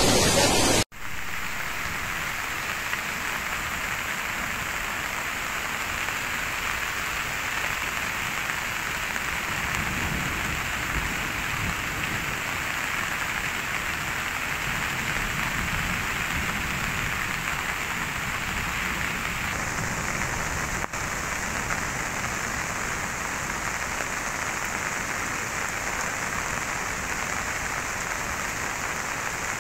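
Steady heavy rain falling, an even hiss with short dropouts about a second in and again about twenty-one seconds in.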